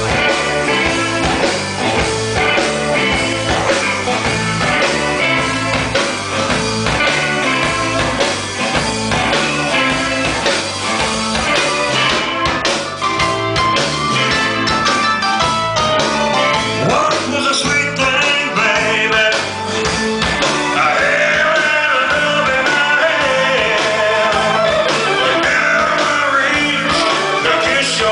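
Live blues-rock band playing, with electric guitar, and a voice singing over it from about twenty seconds in.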